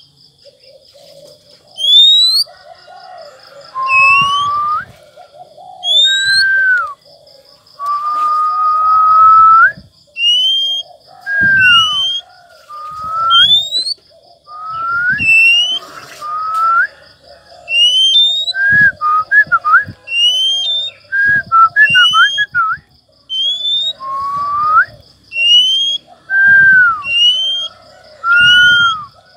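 Oriental magpie-robin singing while held in the hand: a loud string of short whistled phrases that slide up or down, one every second or two. Doves coo steadily in the background.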